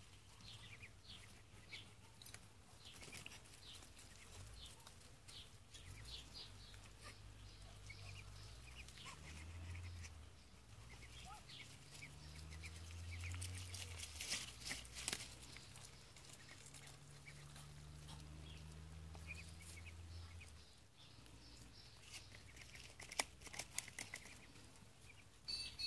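Muscovy ducklings peeping faintly, many short high calls scattered throughout. A faint low hum rises and falls in the middle.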